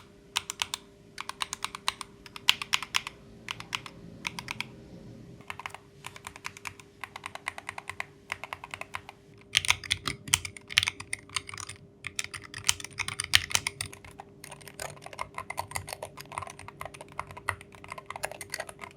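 Typing on a 60% Hall Effect mechanical keyboard: quick runs of key clacks in bursts with short pauses, louder and brighter for a few seconds from about halfway. A faint steady hum lies underneath.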